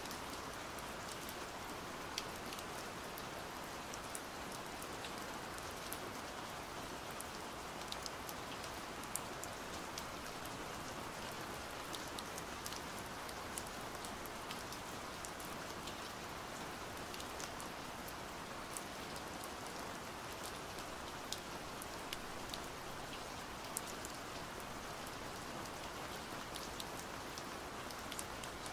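Steady rain, an even hiss with scattered single drops ticking sharply every second or so.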